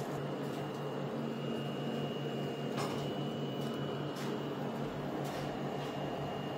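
Steady low hum of a running appliance motor with a faint high-pitched whine, and a few light clicks.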